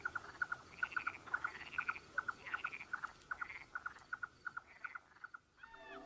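Soft night chorus of frogs calling: short notes repeated several times a second by overlapping callers, with softer warbling calls mixed in.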